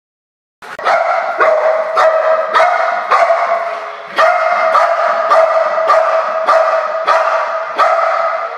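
A protection-trained dog barking loudly and repeatedly at a sliding glass door, about two barks a second, starting about half a second in: territorial barking in a property-protection drill.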